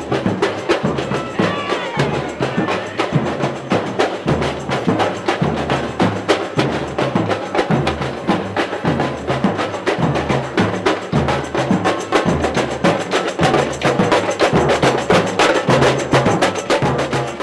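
Street band playing, percussion to the fore with a fast, steady beat.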